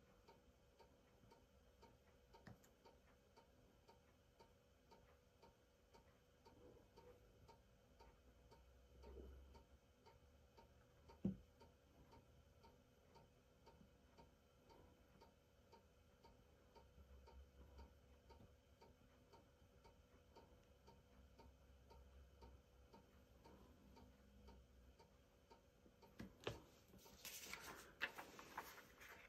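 Near silence with a faint, regular ticking throughout. There is a single light knock about eleven seconds in, and a short stretch of paper crinkling near the end as a sheet of vellum is handled.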